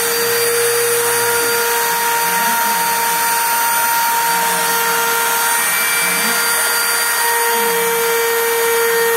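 Spindle motor of a small desktop CNC router running at speed with a steady high whine. Underneath it, the axis stepper motors whirr, rising and falling in pitch as the head moves.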